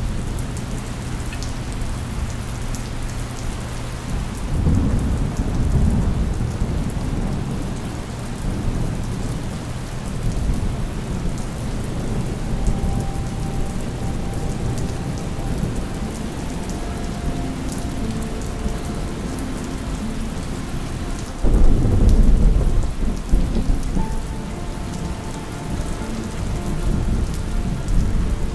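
Steady rain with thunder rumbling twice: once about five seconds in, and louder again about three-quarters of the way through.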